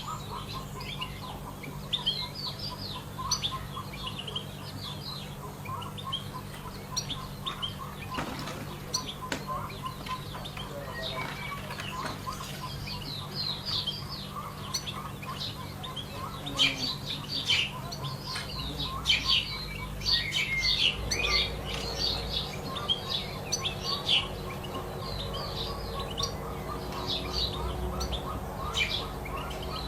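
European goldfinch singing: a continuous stream of quick, high twittering chirps, busiest in the middle of the stretch, over a steady low hum.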